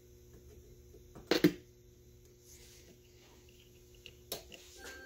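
Low, steady hum from a powered 1959 Admiral stereophonic AM/FM tube radio, broken by a loud pair of sharp clicks about a second and a half in and another click near the end as the tubes and front-panel controls are handled.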